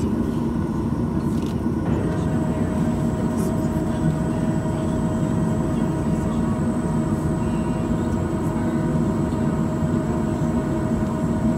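Steady cabin noise inside a Boeing 737-900ER on the ground: a low rumble from the CFM56-7B engines and the cabin air system. About two seconds in, a steady whine joins it and holds.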